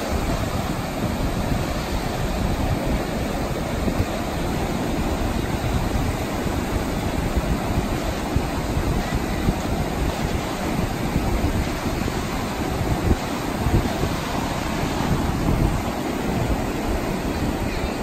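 Surf from small waves breaking and washing up a flat sandy beach: a steady, unbroken sea hiss, with wind buffeting the microphone and adding low rumbling.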